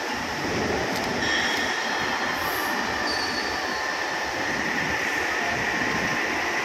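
Hydraulic punching press for plastic flower pots running, a steady machine hum with a high whine over it that strengthens about a second in and again in the second half as the ram lifts and stands open.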